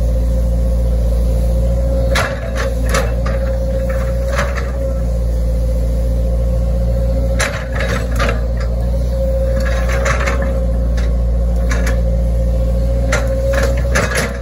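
Hitachi ZAXIS 110 excavator's diesel engine running steadily under hydraulic load, with a steady whine over it. Scattered knocks and scrapes come as the bucket is worked through soil and grass.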